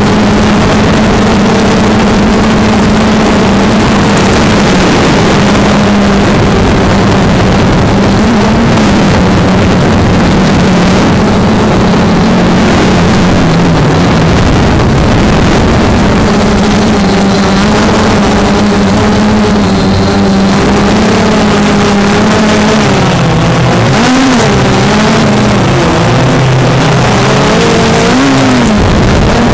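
Multirotor drone's motors and propellers whining loudly and steadily, heard from the aircraft's own microphone; near the end the pitch dips and rises several times as the motors change speed.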